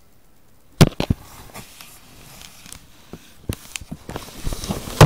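Close knocks and scuffs on a handheld phone: a loud sharp knock about a second in, two more right after it, then scattered smaller knocks and rubbing that grow busier near the end.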